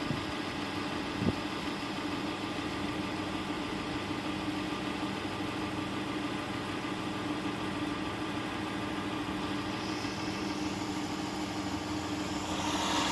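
2010 Chrysler Town and Country's 4.0 V6 idling steadily after repair of a hydrolocked engine, running good while it clears the water and oil left in its cylinders. A short click sounds about a second in, and the engine grows louder near the end.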